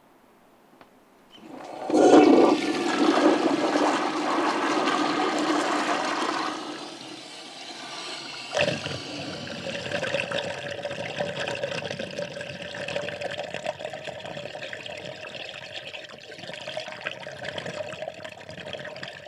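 Rushing, gushing water that starts suddenly about a second and a half in. It is loudest for the next five seconds, then eases into a steadier rush with a sharp jolt at around eight and a half seconds.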